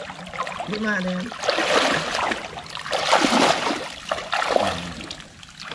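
Legs wading through shallow, muddy pond water, splashing and sloshing in a run of uneven surges.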